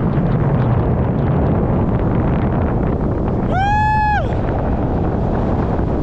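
Wind rushing over and buffeting the camera's microphone during a tandem paraglider flight, a steady loud rumble. About three and a half seconds in, a brief high-pitched tone rises, holds and drops away within under a second.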